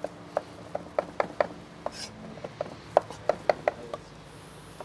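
Kitchen knife chopping a hard-boiled egg on a wooden cutting board: quick, uneven taps of the blade on the board, a brief lull about two seconds in, then a faster run of taps.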